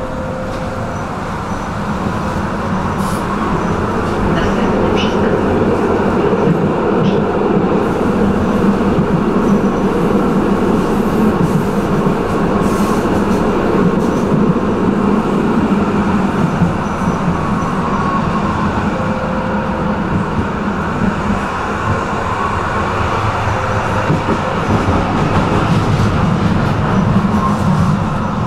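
Tram running along the rails, a steady rumble of wheels and motors that grows louder about three seconds in and then holds.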